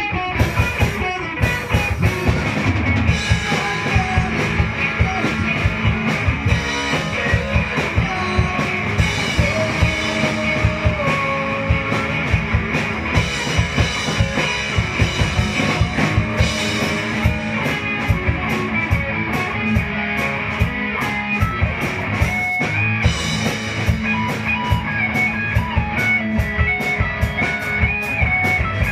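Live rock band playing: a drum kit keeps a steady, busy beat under electric guitars and bass.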